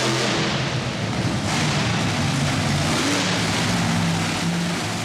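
Monster truck engine running loud, a low engine note under heavy noise, starting to fade near the end.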